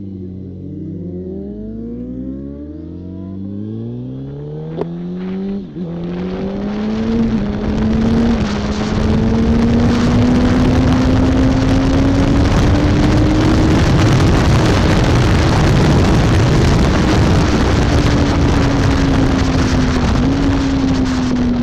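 2007 Yamaha R1's inline-four engine accelerating hard from a standstill, its pitch climbing and dropping back at each of several upshifts in the first six seconds. It then runs at high speed with steady heavy wind rush over the microphone.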